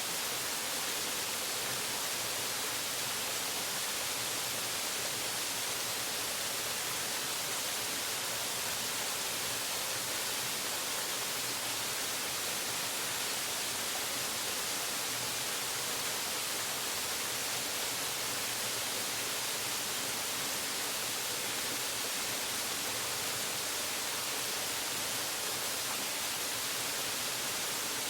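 Waterfall pouring: a steady, unchanging rush of falling water, mostly a high hiss.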